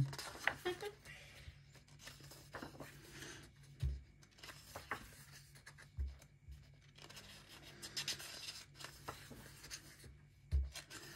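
Paper pages of a colouring book being turned by hand: soft rustling and sliding of paper, with three dull low thumps about four, six and ten and a half seconds in.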